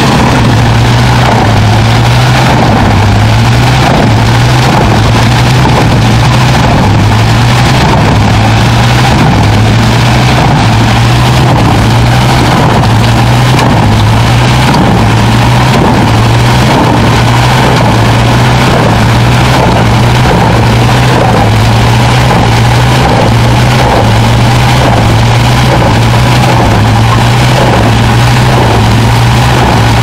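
Large truck-mounted wood chipper running under load as it chews up whole tree trunks fed in by a crane grapple: a loud, steady machine and engine drone with a regular pulsing throb.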